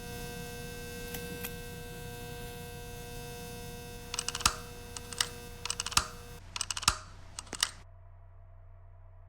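Ceiling fan motor humming with several steady tones. About four seconds in, a run of sharp clicks and knocks comes over it, and near the end the tones stop, leaving a quieter low hum.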